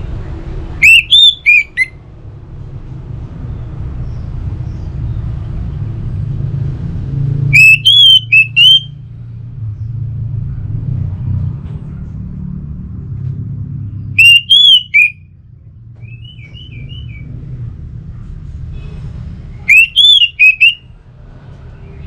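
Orange-headed thrush singing four short, loud phrases of quick rising-and-falling whistled notes, roughly six seconds apart, with a soft chatter between the third and fourth. A steady low rumble runs underneath.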